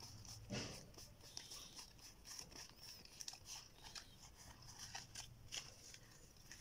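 Faint, irregular clicks and slides of DOS playing cards being fanned and sorted by hand, several soft card snaps a second.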